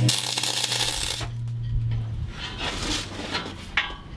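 MIG welder tacking an aluminium frame: the arc hisses for about a second over a low steady hum, and the hum dies away about two seconds in.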